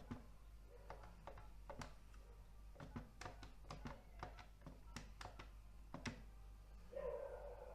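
Faint, irregular clicks of phone keypad buttons being pressed, about a dozen in all, with no key beeps.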